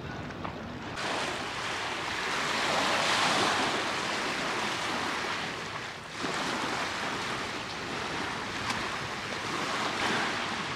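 Small sea waves washing onto the shore: a steady rushing that swells a couple of seconds in and dips briefly around six seconds in.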